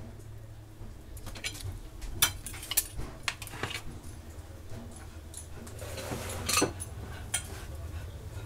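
Several sharp clinks and knocks of a dinner plate and cutlery being handled and set down, over a low steady hum.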